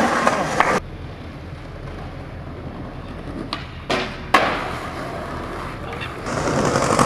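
Skateboard wheels rolling on asphalt, then a sharp pop and a clack as the board meets a metal handrail, a short slide down the rail and a loud crack of the landing, followed by rolling away. A louder passage cuts off under a second in, and louder sound returns near the end.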